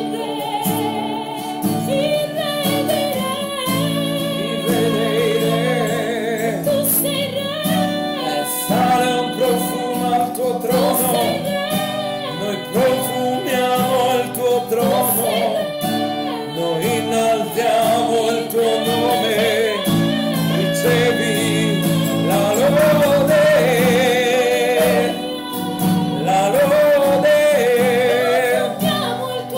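A man and a woman singing a worship song together with an acoustic guitar accompanying them.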